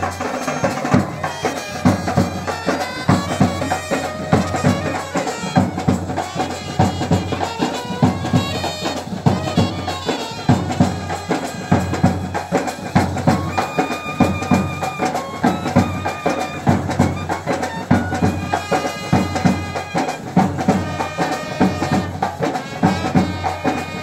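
Street band playing lively dance music: a large bass drum and snare drums keep a steady beat under a reedy wind instrument playing the melody.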